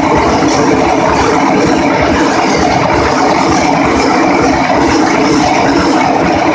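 A train passing through the level crossing close by, with a loud, steady rumble and clatter of wheels on the rails.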